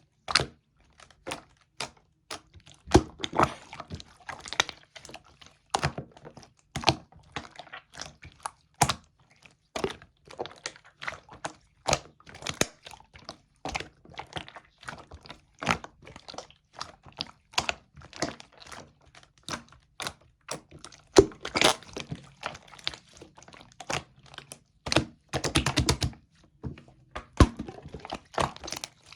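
Slime mixed with small add-in parts being squished, folded and pressed by hand, giving a rapid, irregular run of sticky clicks, pops and crackles.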